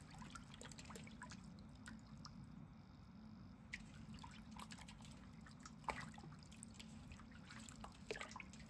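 Faint splashing and dripping of water as hands rinse pieces of hairtail fish in a steel basin, with scattered small splashes and clicks.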